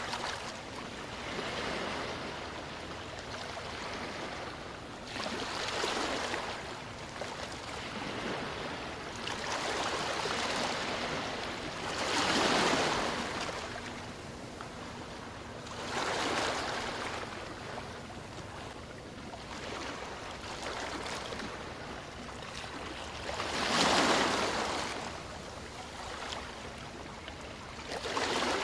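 Ocean surf: waves washing in, swelling and falling away every few seconds over a steady hiss of water.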